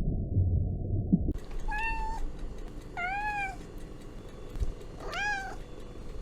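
Domestic cat meowing three times, each meow rising and then falling in pitch, a second or so apart. Before them, about the first second holds a low, muffled sound that cuts off suddenly.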